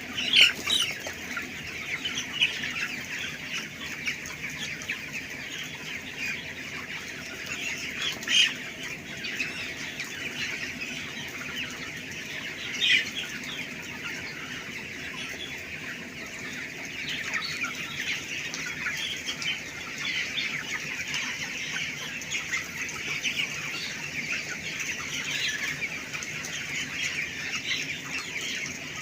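A shed full of three-week-old broiler chickens cheeping and clucking all together in a continuous dense chatter. A few louder squawks stand out: about half a second in, and around the 8- and 13-second marks.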